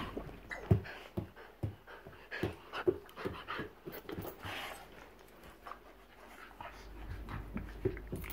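Two bull terriers play-wrestling, breathing hard, with irregular short bumps and thumps as they tussle; the scuffling is busiest in the first half and eases off about two-thirds of the way through.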